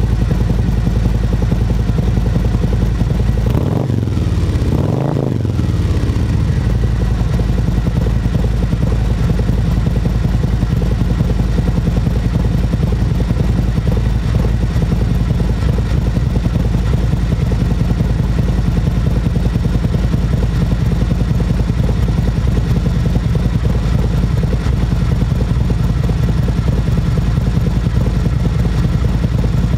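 Harley-Davidson Road Glide Special's Milwaukee-Eight V-twin, fitted with a Khrome Werks full exhaust and a Screamin' Eagle torque cam, idling with a deep exhaust note. About four seconds in it is given two quick blips of the throttle, each rising and falling back to idle.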